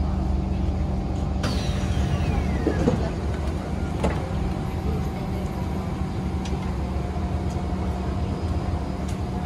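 MRT train's sliding passenger doors opening about a second and a half in, with a falling whine and a click a little later, over the steady low hum of the stopped train.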